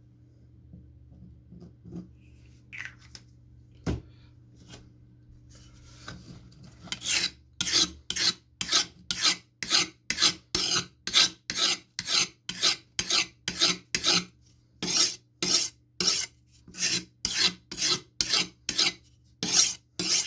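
Rasping strokes of a knife being worked against an abrasive such as a file or stone. The strokes start about seven seconds in and come evenly at roughly two a second, after a few faint clicks and a single knock.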